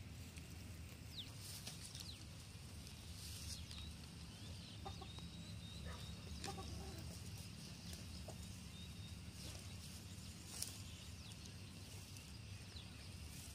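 Faint outdoor ambience: a steady low hum with scattered short bird calls and clucks.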